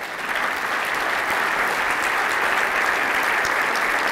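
Large audience applauding: steady, dense clapping that builds up in the first half second and then holds.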